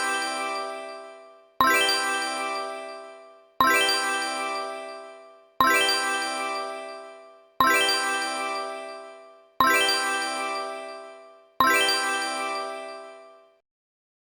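A bright, bell-like ding sound effect struck every two seconds, each strike ringing out and fading before the next. Six strikes sound, then a short silence near the end.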